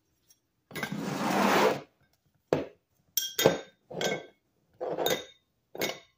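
Rusty metal hole saws being slid across a workbench and set down: a scrape lasting about a second, then about six sharp clinks and knocks as they bump against each other and the tabletop.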